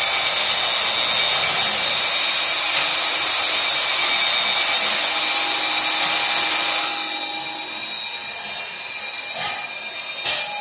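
Electric drill spinning a drain-snake cable fed into a clogged bathroom-sink drain pipe. The motor runs at a steady high speed with a high whine, and gets a little quieter about seven seconds in.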